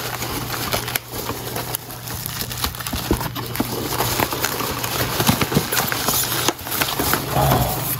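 Hand digging through a cardboard box packed with polystyrene packing peanuts: a dense, irregular rustle and crackle of foam pieces rubbing and clicking together, with a few light knocks as some spill out.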